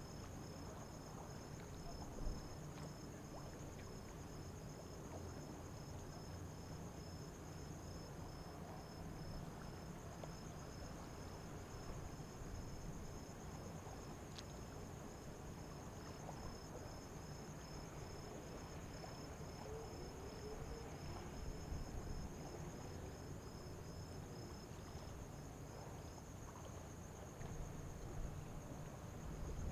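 Insects chirping steadily in a high trill, one of them in regular pulses that stop near the end, over a faint low rumble.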